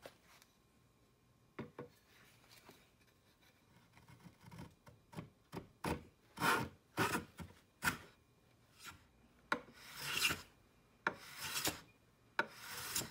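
Stanley 220 block plane taking shavings off the edge of a wooden board: a run of short cutting strokes, starting about a second and a half in, longer and louder in the second half.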